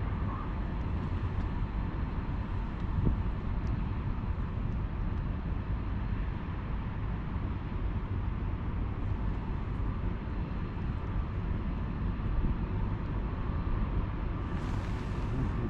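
Steady low rumble of outdoor background noise, with a short hiss starting near the end.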